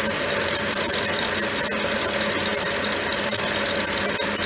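Metal lathe running at a slow speed during a thread-cutting pass: a steady mechanical hum and hiss with a thin, high whine.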